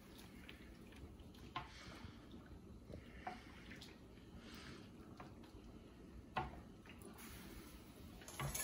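Faint kitchen sounds: a little water moving, with three small sharp knocks spread through, about a second and a half in, near the middle and past six seconds.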